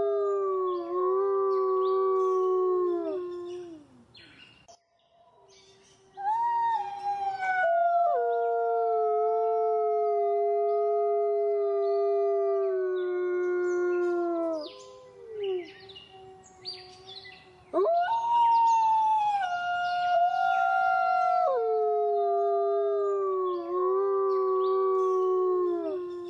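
Wolves howling in chorus: long held howls, two voices at different pitches overlapping, each howl sliding down in pitch as it ends. Three long stretches of howling with short lulls between them.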